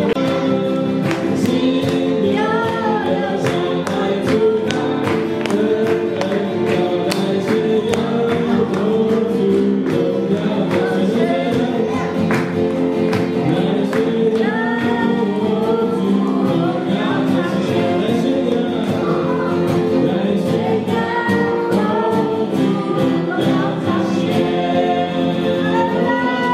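A congregation singing a Christian worship song together, accompanied by an electric keyboard, with a steady light percussive beat.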